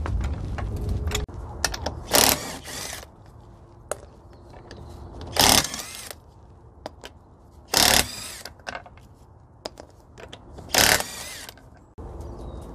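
Power tool on a car's wheel bolts, most likely an impact wrench, running in four short bursts about three seconds apart as the bolts are undone one by one, with light clicks between the bursts.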